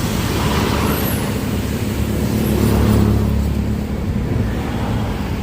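A large bus's engine rumbling as it passes close by, swelling to its loudest about three seconds in and then easing off.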